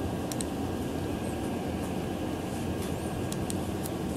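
Steady room noise with a low hum from the ventilation, with a few faint, scattered clicks.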